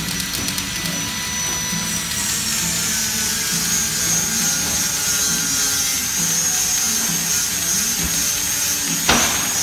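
Stick welding on steel tubing: the arc crackling and hissing steadily while a bead is run, with music playing underneath. A single sharp pop stands out near the end.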